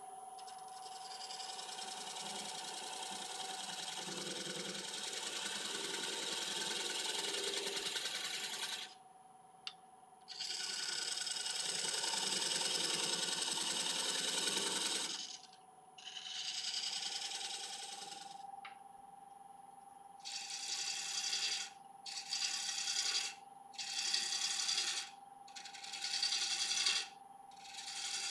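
Wood lathe running with a steady motor whine while a turning tool cuts into a spinning laburnum blank. It makes two long cutting passes, then a run of short cuts about a second each.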